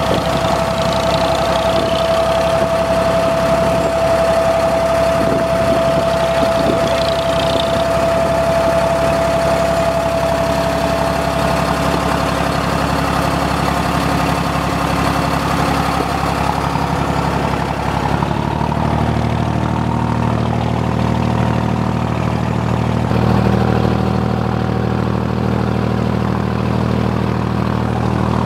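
Abra ferry's inboard diesel engine running steadily under way. A steady high whine sits over it for the first part, and the low engine note becomes deeper and stronger about two-thirds of the way through.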